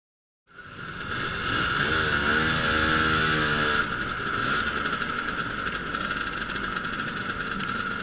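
Motor scooter engine running as the scooter rolls slowly, cutting in about half a second in; its note climbs about two seconds in and holds until about four seconds, then settles back to a steady run.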